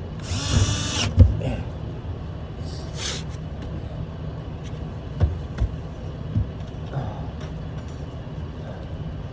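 Two short bursts from a power drill during a bird spike install, the first about a second long and the second about half a second, followed by scattered sharp taps and clicks over a steady low hum.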